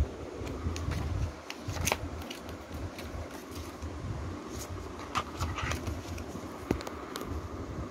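An open plastic DVD case and its paper booklet being handled, giving scattered light clicks and paper rustling. A low, uneven rumble from the handheld microphone runs underneath.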